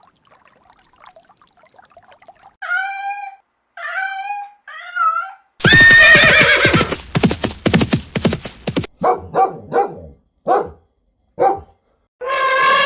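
Dog vocalising: three short high whines, then a loud rapid run of barking, then several single barks spaced apart, and a longer falling call near the end.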